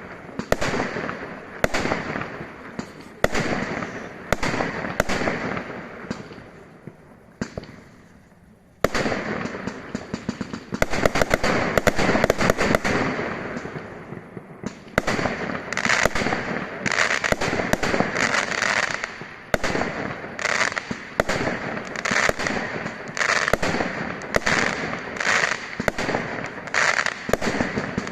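Fireworks display: a rapid series of bangs, each with a trailing crackle. It thins to a lull about a quarter of the way in, then a sharp bang restarts it, and the bangs and crackling come denser to the end.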